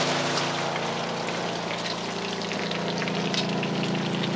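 Bacon sizzling and crackling in a frying pan, under a steady low hum from a small motor.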